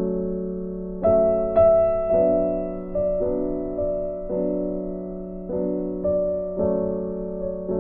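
Soft background piano music, with chords struck about once a second and left to fade.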